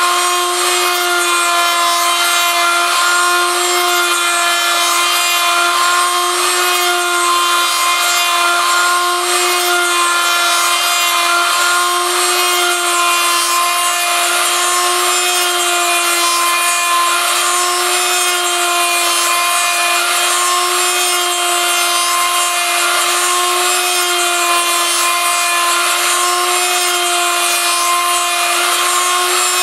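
High-speed rotary tool in a homemade copy mill running at a steady high whine while its bit cuts into a turning wooden lure blank, with a continuous rasping of the wood being milled.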